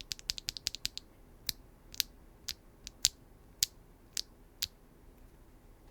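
Typing on a Neo 80 mechanical keyboard with Keygeek Butterfly linear switches, a carbon fiber plate and no case foam: a fast run of keystrokes for about a second, then single keys pressed about twice a second, stopping about a second before the end.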